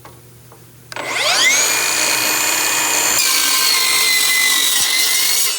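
Milwaukee M18 Fuel 8-inch cordless metal-cutting circular saw spinning up about a second in, then cutting through roughly 3/16-inch steel plate, its whine dropping slightly in pitch under load. The cut finishes and the trigger is released near the end.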